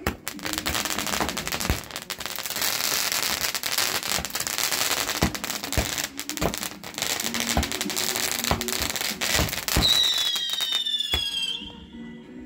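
Fireworks going off: a dense crackling hiss full of sharp pops, with a firework whistle near the end whose pitch falls slightly over about a second and a half.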